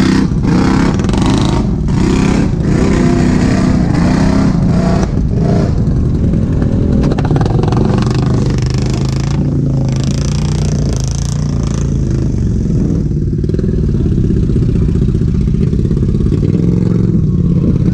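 ATV engine running and revving under load, its pitch rising and falling, with irregular clatter over the first five seconds.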